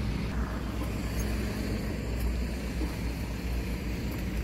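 Steady low rumble of motor vehicle noise, with an even hiss above it and no distinct events.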